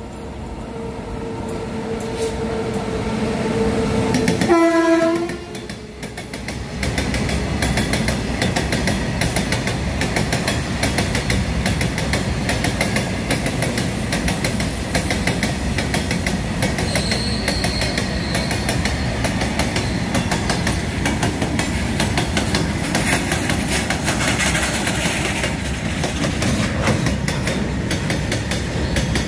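Freight train passing at speed. The locomotive horn sounds steadily and grows louder as it approaches, then drops in pitch as the engine goes by about five seconds in and stops. After that comes the continuous rumble and clatter of the open wagons' wheels over the rail joints.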